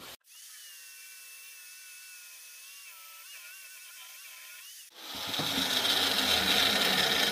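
Handheld belt sander porting a welded steel turbo manifold flange: the motor runs with a whine that wavers in pitch as the belt works the metal lightly. About five seconds in, a much louder, harsh grinding noise abruptly takes over.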